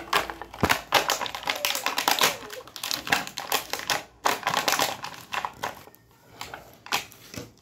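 Irregular tapping, clicking and scratching as a baby handles a small pink plastic toy and pats a woven plastic floor mat. The taps come thick and fast at first and thin out near the end.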